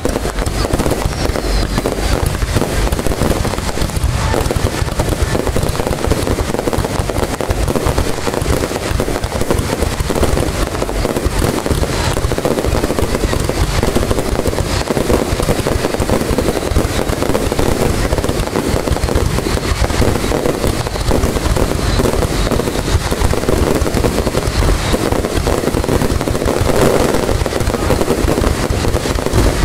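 Fireworks display: a continuous, dense barrage of bangs and crackles with no pause.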